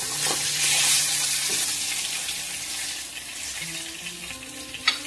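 Foli (featherback) fish shallow-frying in hot oil in a wok: a steady sizzle that is loudest in the first second or two and slowly dies down. A single sharp click comes near the end.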